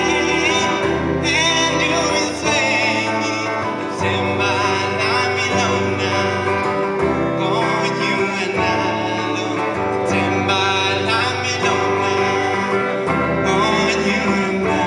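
Live music: a man singing into a microphone with electric guitar accompaniment.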